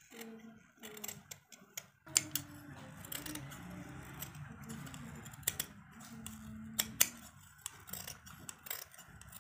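Large metal tailor's scissors cutting through fabric, the blades scraping along the cloth and closing with a few sharp clicks.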